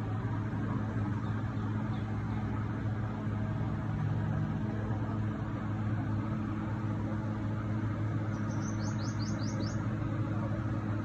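Toyota Corolla GLi engine idling steadily with an even hum. Near the end a bird chirps about five times in quick succession, each chirp falling in pitch.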